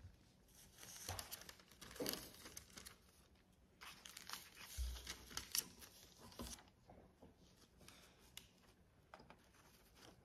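Faint rustling and crinkling of paper wrapping, in irregular bursts, as it is folded back inside a small gift box.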